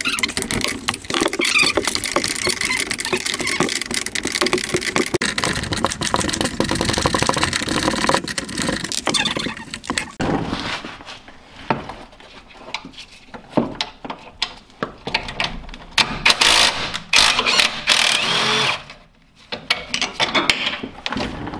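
Cordless impact wrench hammering at the tight nut of a sway bar end link: one long continuous run for about ten seconds, then several shorter bursts.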